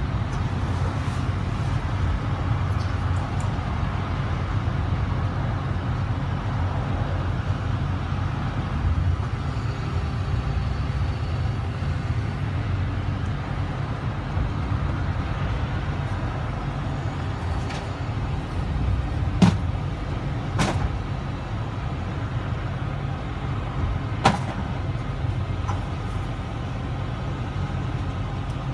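Parked vehicle's engine idling as a steady low rumble, with three sharp knocks in the latter part.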